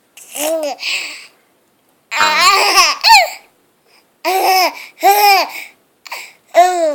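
A baby squeaking: four high squeals in a row, each rising and falling in pitch, the one about two seconds in shakier and laugh-like.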